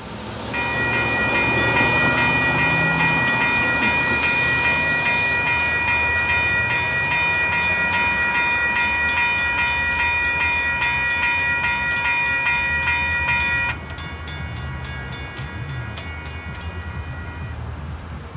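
Diesel locomotive's multi-note air horn sounding one long blast over the rumble of a train, with rapid, evenly spaced clicks. About two-thirds of the way through the horn drops sharply to a quieter sound, then stops near the end.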